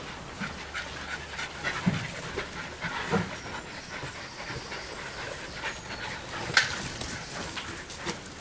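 Border terriers panting while moving about, with scattered rustling and knocking in the straw and one sharper knock late on.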